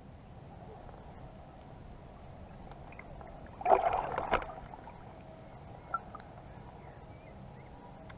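Small waves lapping against an inflatable float tube, a steady soft wash of water. A short, louder burst of noise comes about halfway through, and a few faint clicks are scattered across the rest.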